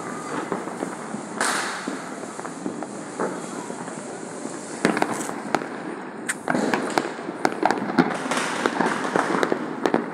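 Aerial fireworks and firecrackers going off: a steady scatter of sharp bangs and crackles that grows denser and busier about two-thirds of the way through.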